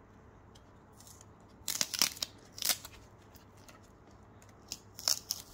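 Sticky tape being picked at and peeled off a rigid plastic card top loader, in a few short rasping bursts about two seconds in and again near the end.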